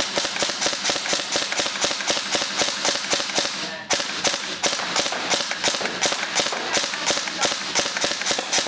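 Krytac Kriss Vector AEG airsoft SMG firing a long string of shots in rapid, even succession. There is a brief break about four seconds in, and the firing stops near the end as the magazine runs empty.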